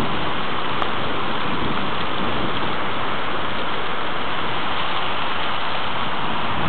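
Heavy rain pouring down steadily during a thunderstorm, a dense even hiss.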